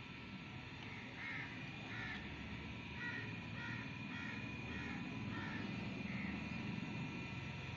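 Crows cawing: a run of about ten short caws, some coming in quick succession.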